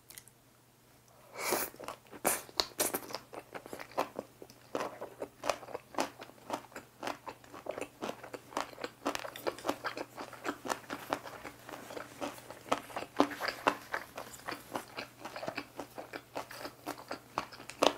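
Close-up mouth sounds of eating boiled pork with seasoned dried radish strips (mu-mallaengi): a bite about a second and a half in, then steady crunchy chewing with many quick wet clicks.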